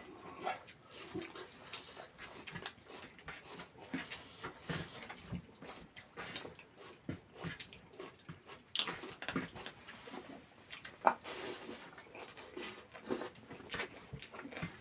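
A person chewing and eating chicken curry with rice close to the microphone: irregular wet mouth smacks and small clicks, with no steady rhythm.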